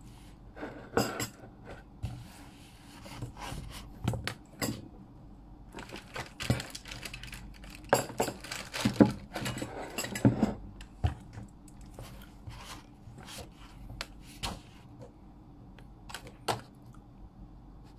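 Handling noise close to the microphone: irregular small taps, clicks and rustles, busiest from about six to eleven seconds in.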